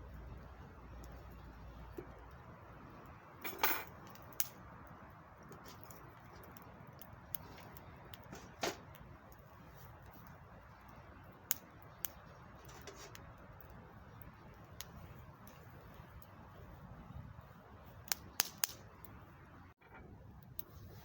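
Wood fire crackling over a steady low hiss, with sharp pops scattered through it, the loudest about three and a half and eight and a half seconds in and a quick cluster near the end.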